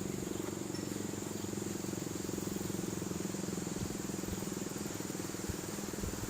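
Insects chirring steadily in a high, even drone, over a steady low hum.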